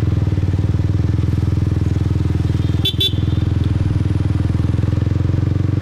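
Motorbike engine running steadily while riding, a low, evenly pulsing sound, with a brief double blip about three seconds in.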